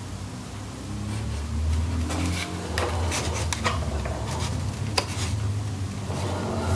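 Broken wooden folding-table leg pieces being handled, giving a few light clicks and knocks of wood against wood, over a low steady hum.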